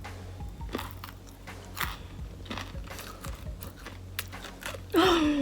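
Crunchy chewing of homemade peanut brittle: a string of small, crisp crunches as the hard candy and peanuts break between the teeth. About five seconds in comes a short voiced sound that falls in pitch.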